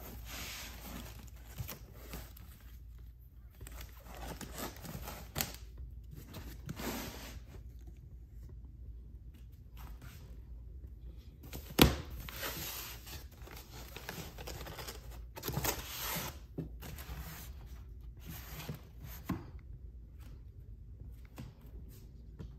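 Foam packing sheets and boxes rustling and scraping as a hand handles them on a shelf, in short irregular bursts, with one sharp knock about halfway through.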